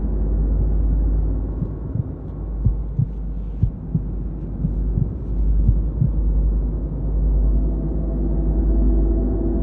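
Dark, droning background music: a deep steady rumble under several held low tones, with a few soft thumps in the middle.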